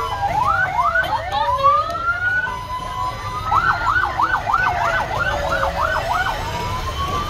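Several fire-truck sirens sounding at once, their overlapping wails gliding up and down in pitch. Partway through, one switches to a fast yelp of about four sweeps a second. A low rumble runs underneath.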